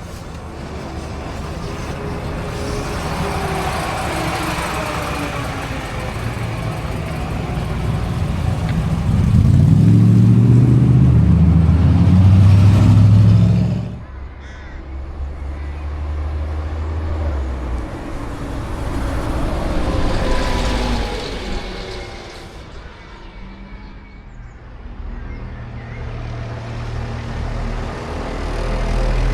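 Diesel engines of classic buses running and driving past, in several short takes cut together. The loudest is a bus engine close by, rising in pitch as it pulls away, which cuts off abruptly about halfway through.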